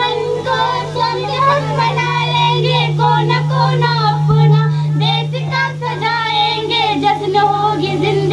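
Group of young girls singing a Hindi patriotic song together into microphones, amplified through PA loudspeakers, with a steady low hum underneath.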